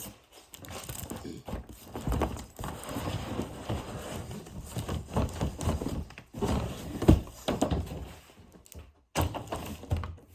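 A suitcase and its packaging being handled: a string of knocks and thuds with rustling, and one loud thump about seven seconds in.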